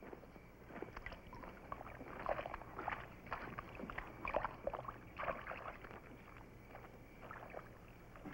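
A razor scraping through lathered stubble in short, irregular strokes, roughly one or two a second, thinning out after about five seconds.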